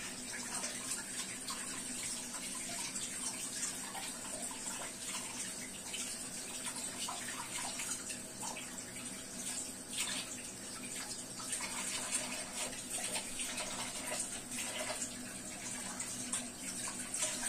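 Steady rushing water noise with faint crackling streaks through it, over a low steady hum.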